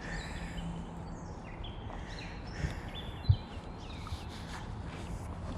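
Outdoor river ambience with faint bird chirps and a steady low hum, broken by two low knocks about two and a half and three and a half seconds in.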